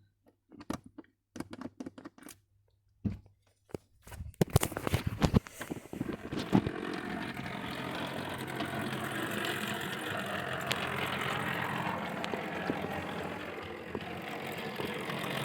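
A few scattered clicks, then from about four seconds in an O gauge model locomotive runs along the track: a steady whirring of its electric motor and wheels rolling on the rails.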